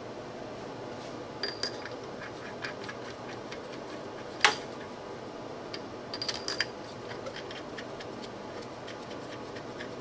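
Metal parts and tools being handled, clinking and tapping: a few light clicks, one sharp click about four and a half seconds in, and a quick run of clinks just after six seconds, some with a brief ring.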